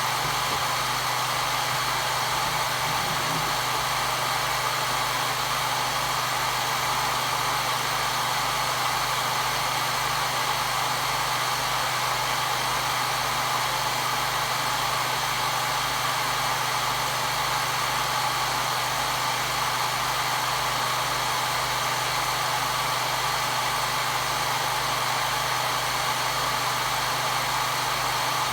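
Hair dryer running steadily: a constant whooshing hiss with a low motor hum underneath, used as white noise to soothe a baby.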